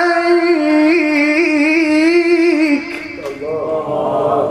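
A man's voice in melodic Quranic recitation, holding one long note with a slight waver at the drawn-out end of a phrase. About three seconds in the note breaks off and a quieter, lower vocal line follows.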